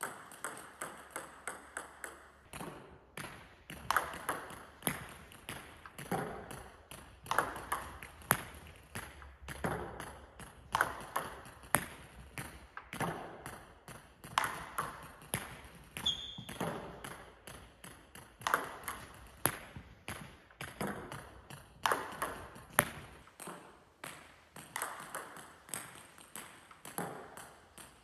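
Table tennis serves repeated one after another: the sharp tick of the bat striking the ball, then the lighter ticks of the ball bouncing, in quick clusters every second or two. The clicks echo in a large sports hall.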